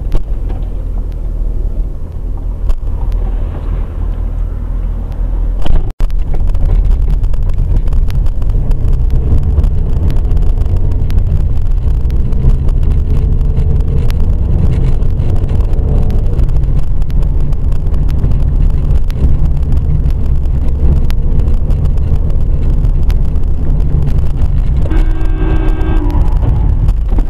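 Steady low rumble of a car driving, road and engine noise picked up by a dash camera, with a brief break about six seconds in. Near the end a short horn sounds.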